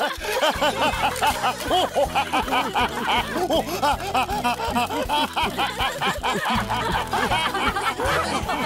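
Cartoon characters laughing heartily, a continuous run of quick 'ha-ha' laughs from several voices, over background music with a steady bass beat.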